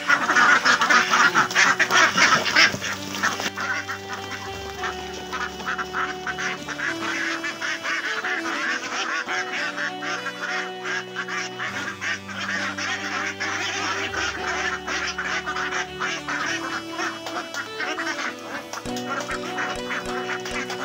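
A large flock of ducks quacking and calling all at once as they crowd in to feed, loudest in the first few seconds. Background music with slow held notes runs underneath.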